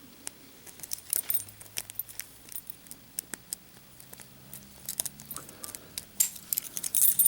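Lock picking a brass Master Lock No. 4 padlock: scattered small metallic clicks and scrapes of a small wave pick working the pins under light tension, ending in a louder metallic rattle near the end as the lock opens.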